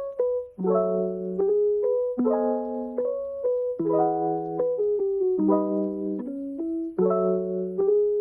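Background music: a soft lo-fi piano track, chords struck and held in turn at an easy tempo, a new chord about every second or so.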